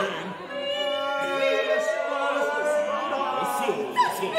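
Unaccompanied voices of a vocal sextet singing contemporary art music. Several long held tones overlap, one of them slowly rising in pitch, and a short sharp vocal attack comes near the end.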